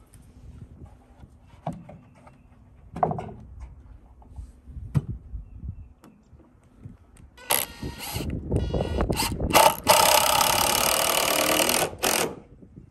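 Cordless drill driving a screw into a wooden post. A couple of knocks and handling clicks come first. About halfway through, the drill starts and stops a few times, then runs steadily for about two and a half seconds and stops shortly before the end.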